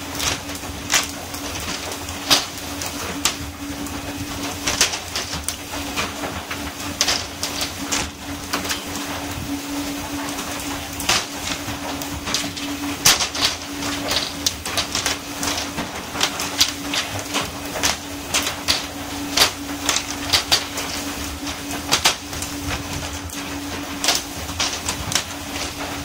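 Fish caught on poles slapping down onto a fishing boat's deck one after another at irregular intervals, over a steady hum from the boat and the constant hiss of water spray along the hull.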